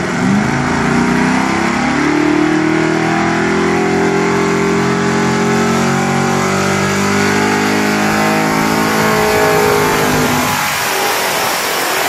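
Pickup truck engine at full throttle pulling a weight-transfer sled in a truck pull, revs climbing over the first couple of seconds, holding steady, then falling away about ten seconds in.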